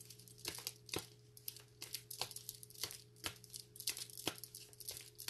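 Tarot cards being shuffled and handled by hand: irregular light snaps and clicks of card on card, over a faint steady hum.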